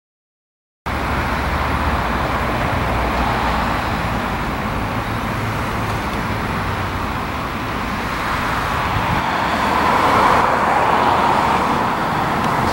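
Road traffic noise, a steady rumble and hiss of passing vehicles that starts suddenly just under a second in and grows louder about three-quarters of the way through.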